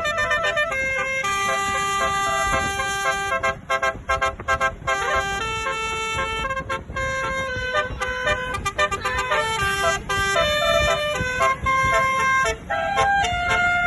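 A bus's basuri horns, a set of electric multi-trumpet 'telolet' horns, sounding together and playing a tune of held notes that change pitch every fraction of a second to a second. Quick staccato blasts come around four seconds in and again near nine seconds, over a low rumble.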